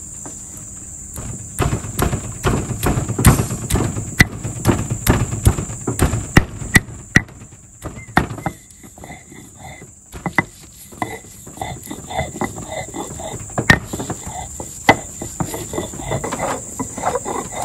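Granite stone roller knocking and crushing pieces of fresh ginger against a stone grinding slab (batu giling), in quick irregular strokes for the first several seconds, then slower, lighter strokes after a short lull. Insects chirr steadily in the background.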